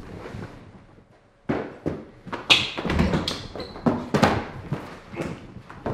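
A quick, irregular run of knocks, taps and thuds, beginning about a second and a half in, several of them loud.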